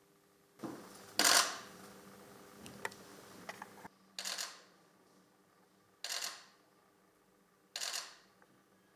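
Camera shutters firing in short rapid bursts, five bursts a couple of seconds apart, the one just after a second in the loudest.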